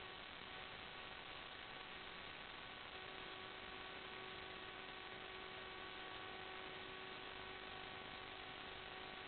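Steady electrical hiss and hum, with several faint steady whining tones and nothing else happening.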